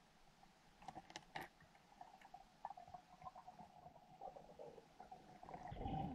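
Faint underwater sound through a diving camera: a thin steady hum, a few sharp clicks about a second in, and a low rumble swelling near the end.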